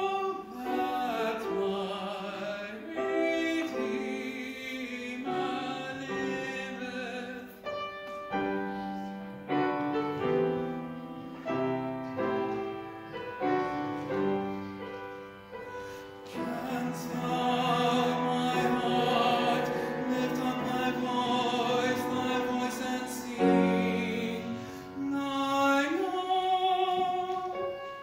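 Solo tenor singing a sacred song in a classical, operatic style with vibrato, accompanied by piano. The second half holds a long, loud sustained passage.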